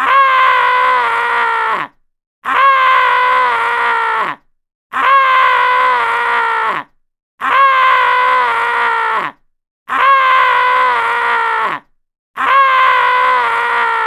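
A man screaming a long "aah", the same scream played six times over with short gaps between; each lasts about two seconds and drops in pitch as it ends.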